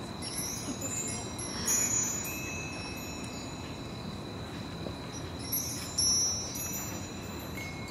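Metal chimes ringing: bright clusters of high tones that start suddenly and fade, about two seconds in and again about six seconds in. Under them runs a steady high trill of night insects.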